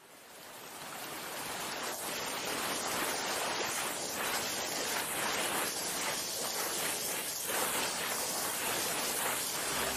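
A steady rushing noise, like surf, that fades in over the first two to three seconds and then holds: a sound effect under an animated title graphic.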